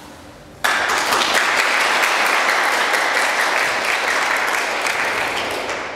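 A small group applauding. The clapping starts abruptly about half a second in and dies away near the end.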